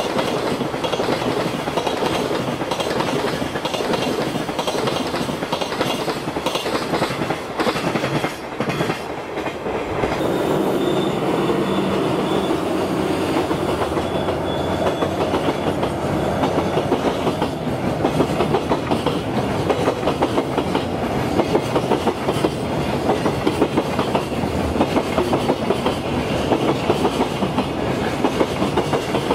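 Long container freight train passing, its wagon wheels rumbling steadily over the rails. From about halfway through, a regular clickety-clack of wheels crossing rail joints stands out.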